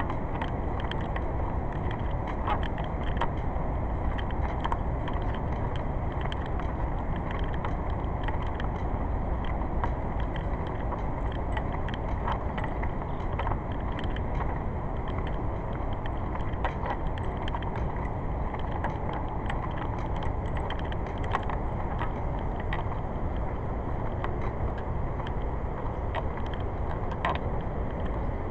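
Steady low rumbling noise throughout, with many short light clicks and rattles scattered through it.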